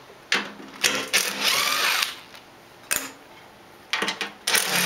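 Screws being backed out of a snowblower's cover plate with a 3/8-inch socket: bursts of metallic tool noise. The longest, about a second long and rising in pitch, comes about a second in, with shorter bursts near the start, in the middle and near the end.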